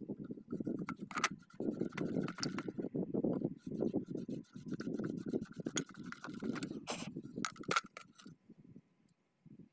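Hands scraping and rubbing at the metal slip rings and brush holders of a centre-pivot irrigation collector ring being cleaned. It comes as a string of short scrapes with a few sharp clicks, and stops briefly near the end.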